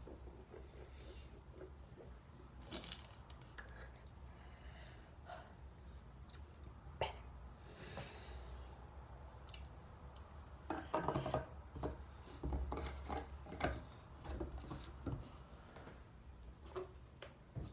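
Mouthwash being swished in the mouth, with scattered small clicks and knocks of things handled at a bathroom counter over a low steady hum; a quick cluster of knocks about eleven seconds in is the loudest.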